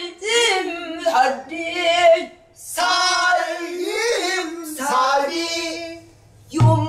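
A woman sings a Korean danga in the pansori vocal style: long, strained phrases with wavering vibrato and sliding ornaments on held notes. The phrases are broken twice by short pauses.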